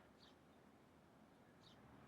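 Faint short bird chirps, two in all, about a second and a half apart, over a faint low background noise.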